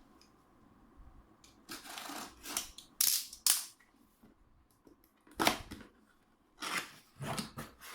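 A cardboard laptop box being opened by hand: a series of short, sharp cardboard and tape noises, several in quick succession with short pauses between.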